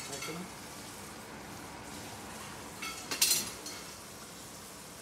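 Chilli chicken frying in a stainless steel pan with a steady sizzle as a metal spoon stirs it, with a brief loud clatter about three seconds in.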